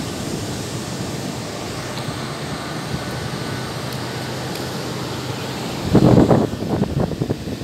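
Steady outdoor wind noise rumbling on a phone microphone, with a louder swell about six seconds in and a few soft knocks after it.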